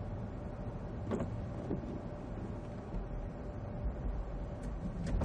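Car cabin noise picked up by a dashcam while driving: a steady low engine and road rumble with a faint steady tone, and a few soft clicks about a second in and near the end.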